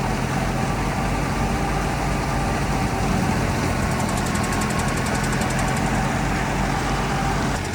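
Engine of wheat-harvesting machinery running steadily, with a faint rapid ticking from the machine partway through.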